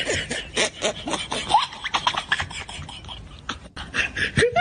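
A person's voice in rapid, rhythmic bursts with short pitch swoops, like breathy laughter.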